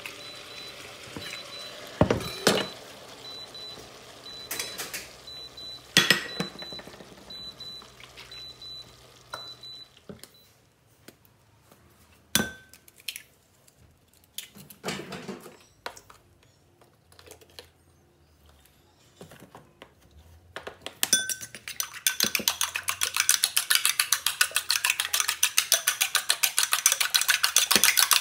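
Eggs being beaten in a ceramic bowl: a fast, steady run of utensil clicks against the bowl in the last few seconds, the loudest part. Before it come a few sharp knocks as eggs are cracked on the bowl, over a faint sizzle from the pan.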